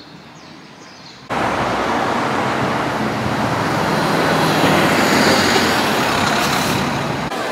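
Road traffic noise, with a motor vehicle running close by; it starts suddenly about a second in and swells a little before easing off near the end.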